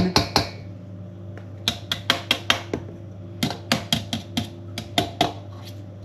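Quick runs of sharp taps and knocks as small plastic yogurt pots filled with flour are emptied and tapped against a mixing bowl: a burst of about six, then after a short pause about nine more.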